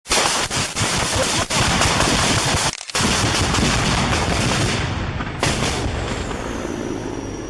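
Dense, rapid heavy gunfire and impacts from a helicopter attack landing close by, with a brief break a little under three seconds in. One last loud blast at about five and a half seconds fades away.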